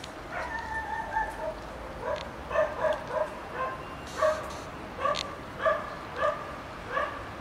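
Kitten mewing: one longer mew near the start, then a string of short, high mews about two a second.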